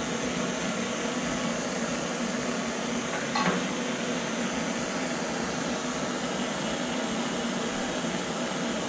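Hand-held propane torch burning with a steady hiss as its flame heats a cast-iron oil pump in a vise, with a single light metallic clink about three and a half seconds in.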